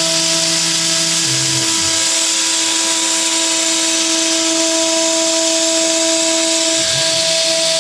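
DIY CNC router's spindle running steadily while milling aluminum: a steady high whine over a hiss of cutting. A lower hum drops out about a second and a half in and comes back near the end.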